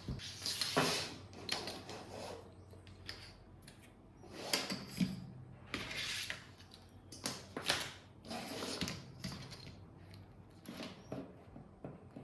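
Irregular short bursts of mechanical rattling and clicking, about eight of them spread unevenly.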